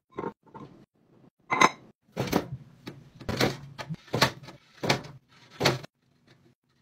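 Small oranges dropping into a glass jar with light knocks, then aluminium soda cans loaded one after another into a chrome wire can rack, each rolling down and knocking against the cans in front.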